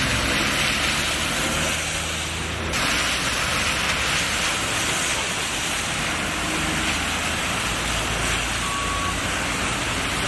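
Cars and a city bus driving along a flooded, rain-soaked road: a steady hiss of rain and tyres on standing water, with engine hum from passing vehicles and a bus engine rumbling closer near the end. A brief high beep sounds near the end.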